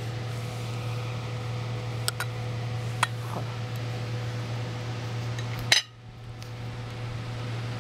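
A spoon clinking a few times against a glass dessert cup, the sharpest clink a little before six seconds in, over a steady low hum.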